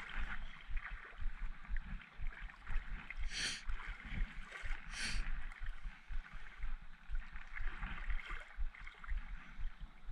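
Shallow rock-pool water sloshing and lapping around a camera held at the surface, with irregular low thuds and two brief, sharper splashes about three and a half and five seconds in.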